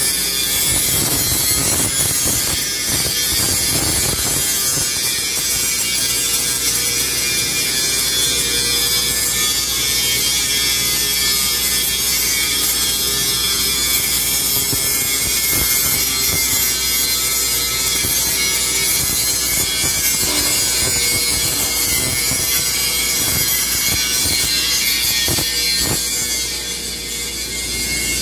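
Angle grinder grinding steel, a steady, loud hissing grind that throws sparks.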